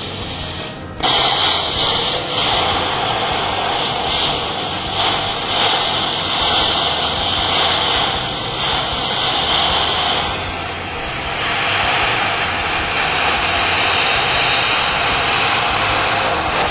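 Plasma cutter cutting through a steel water-heater tank: a loud, steady hiss of the cutting air and arc. It starts about a second in and eases briefly past the middle before picking up again.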